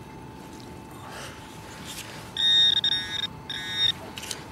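Metal detector pinpointer sounding a high, buzzing electronic tone in two bursts, about two and a half seconds in, as it is probed into the dug soil: the signal of a metal target close by.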